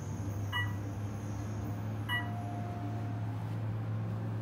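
Modernized Otis Elevonic 401 elevator car travelling upward with a steady low hum. Two short electronic beeps, about half a second and two seconds in, are the floor-passing tone as the car passes each floor.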